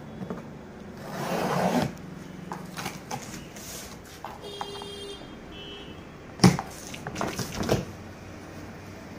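Box cutter slicing along the packing tape of a cardboard carton, a scraping swell about a second in, followed by small rustles and clicks. Cardboard flaps are then pulled open with a few sharp knocks and flaps slapping about two-thirds of the way through.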